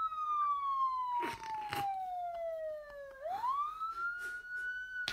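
Toy police car's siren wailing: one slow falling sweep lasting about three seconds, then a quick rise back up to a held high tone. Two brief sharp sounds come partway through the fall.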